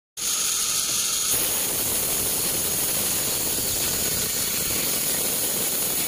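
Sawmill band saw running with a steady, even hiss.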